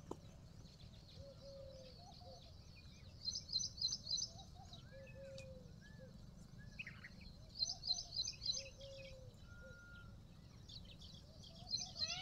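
Wild birds calling: three bursts of rapid high chirps a few seconds apart, with softer, lower whistled notes repeating in between, over faint low background noise.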